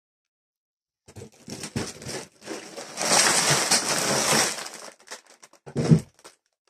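Clear plastic LEGO parts bags crinkling and rustling as they are tipped out of a cardboard box, starting about a second in and loudest in the middle, with a short knock near the end as the pile settles.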